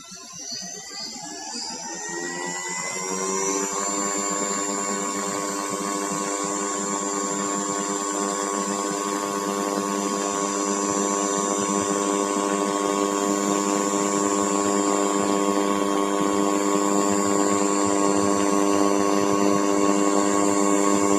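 Leica RTC360 laser scanner running a scan. Its motor spins up with a rising whine over the first three or four seconds, then holds a steady whine of several tones while the scanner head turns on its tripod.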